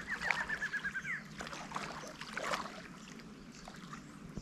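A bird's rapid trill of about ten short, evenly spaced chirps in the first second, followed by scattered faint clicks and rustling.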